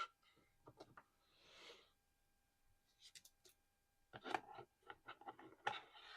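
Quiet close-up tapping and handling of small collectible items: light clicks, taps and scratches, with a soft swish about a second and a half in and a quick run of taps over the last two seconds.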